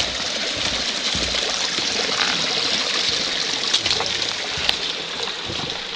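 Creek water running steadily, with a few light clicks over it.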